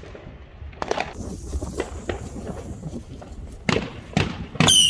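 Fireworks going off: scattered sharp cracks and pops, with a few louder bangs in the last second and a high whistle starting near the end.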